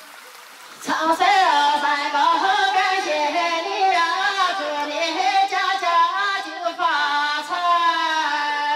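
A woman singing a shan'ge (Chinese mountain folk song) solo into a handheld microphone, with bending, ornamented pitch. She comes in about a second in and closes the phrase on a long held note near the end.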